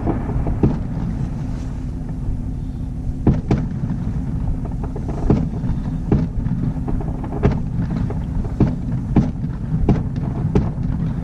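Fireworks display going off: about a dozen sharp bangs at uneven intervals over a steady low rumble.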